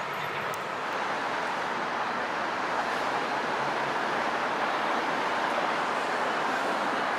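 Steady street traffic noise, an even hiss of passing cars with no distinct event, growing slightly louder about a second in.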